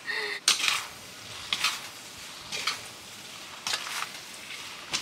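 A metal spatula scraping and tossing noodles in a wok, in short strokes about once a second, over a faint steady sizzle of stir-frying.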